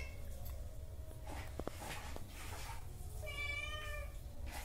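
A domestic cat meows once, a single held meow of under a second about three seconds in: a hungry cat begging for food.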